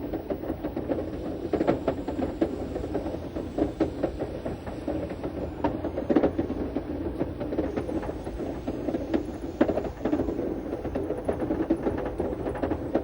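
Schynige Platte Railway's 800 mm gauge rack train climbing the steep Pauli-Riggenbach rack line slowly, a steady rumble with many irregular clicks and knocks from the wheels and rack.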